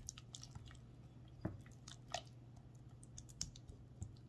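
Silicone spatula mashing ripe bananas in a glass bowl: faint, irregular wet squishes with light taps of the spatula against the glass.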